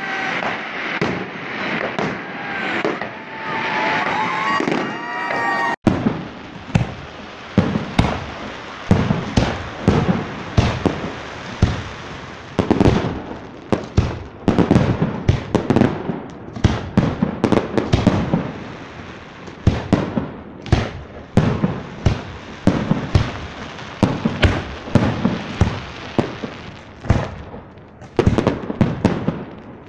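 Aerial fireworks shells bursting. About six seconds in the sound changes abruptly to a rapid string of sharp bangs and crackles, two or three a second, that keeps going.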